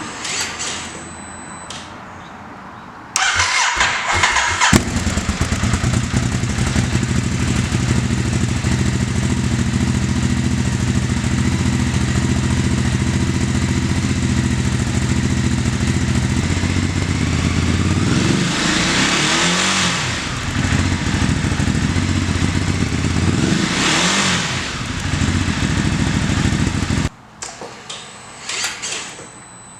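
Ducati Hypermotard 939 SP's L-twin engine breathing through a Termignoni slip-on exhaust. A few seconds in, the starter cranks for about a second and a half, then the engine catches and idles steadily. Two throttle blips rev it up and back down, and it cuts off a few seconds before the end.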